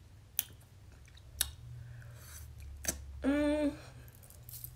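Spoon clicking sharply against an ice cream pint three times, a second or so apart, with a short hummed "mm" from the taster about three seconds in.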